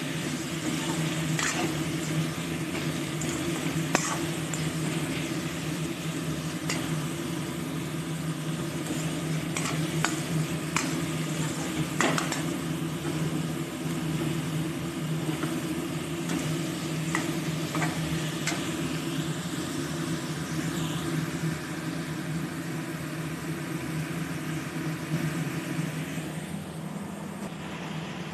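Chicken pieces frying in mustard oil in a kadai, sizzling steadily while a spatula stirs them, with sharp clicks of the spatula against the metal pan every second or few. A steady low hum runs underneath, and the sizzle dies down near the end.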